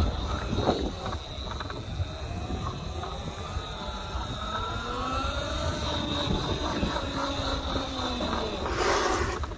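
Electric motor of a 48V BombMoto B1 electric pit bike whining up and down in pitch as it speeds up and slows, over wind rumble on a helmet-mounted phone microphone. A short rush of noise comes about nine seconds in.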